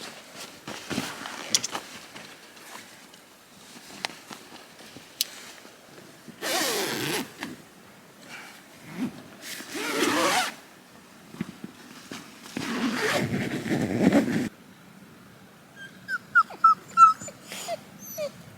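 A dog whining and vocalizing in several drawn-out bouts with a wavering pitch, then a run of short, high, rising whimpers near the end.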